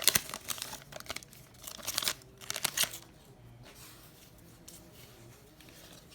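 Plastic trading-card pack wrapper crinkling and tearing as a pack is handled and ripped open, in a few short bursts over the first three seconds, then only faint handling noise.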